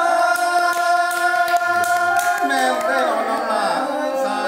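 Unaccompanied Thai folk singing (hát Thái): a voice holds one long steady note for about two seconds, then wavers up and down in an ornamented line.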